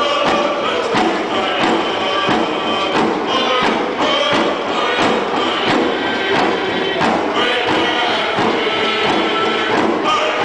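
Drums beating a steady beat under a group of voices singing a dance song.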